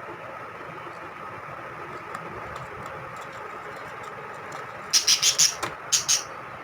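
Lovebirds giving a quick string of short, shrill squawks about five seconds in, then two more, as a pair scuffles at feeding time. A steady mechanical hum runs underneath.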